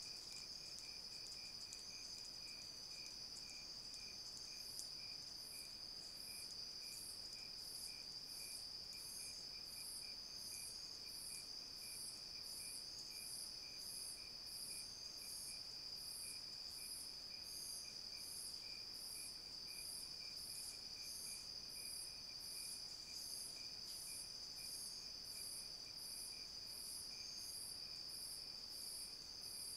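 Night insects calling in chorus: a steady high trill, a lower, fainter rapid pulsing, and from about five seconds in a high chirp repeating a little more than once a second.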